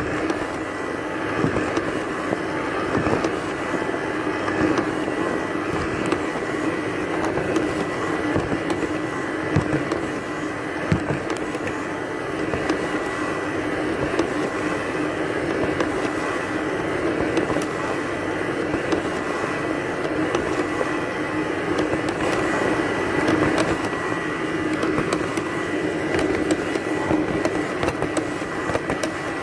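Robot vacuum cleaner running: a steady motor hum with a thin high whine, and occasional light clicks and knocks.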